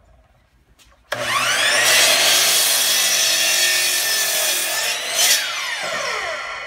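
Bosch miter saw motor starting with a rising whine about a second in, then the blade crosscutting a wooden board to length for several seconds. Near the end the cut finishes and the blade spins down with a falling whine.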